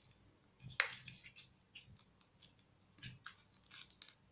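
Faint scattered taps and light rustles of hands handling and pressing paper craft pieces onto a paper-roll frame on a cutting mat, the firmest tap about a second in.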